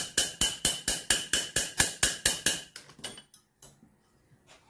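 Rapid, even hammer taps, about four or five a second, on a broken valve stuck in a Suzuki Hayabusa's aluminium cylinder head, each blow ringing. The valve is being knocked out with light blows. The tapping stops about two and a half seconds in, followed by a couple of fainter knocks.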